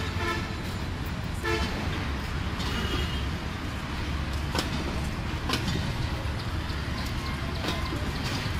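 Bangladesh Railway passenger coaches rolling slowly past with a steady low rumble, their wheels clacking over rail joints a few times. A horn gives short toots near the start and again about a second and a half in.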